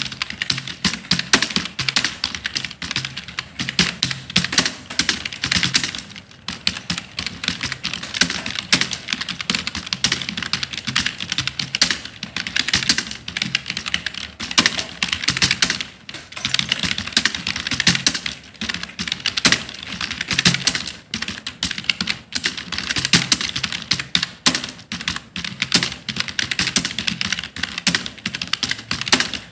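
Fast continuous typing on a computer keyboard, a dense run of key clicks with brief pauses about six and sixteen seconds in.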